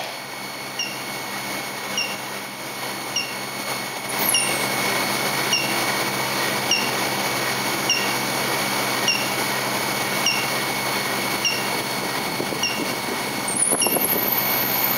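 Induction heating machine running with a steady hum and a faint chirp repeating about once a second. Near the end a very high-pitched whine comes in as the coil heats a steel billet to orange heat.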